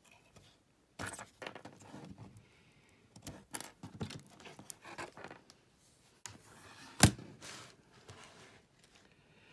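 Handling noise from unplugging a USB-C cable and a small USB-C tester stick and swapping laptop machines on a wooden bench: scattered clicks, knocks and rustles. A single sharp click about seven seconds in, the loudest sound, is the tester being pushed into a USB-C port.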